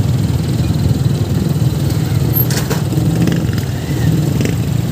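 A motorcycle riding along the road, heard from the pillion seat: its engine and the wind rushing over the phone's microphone make a steady low rumble.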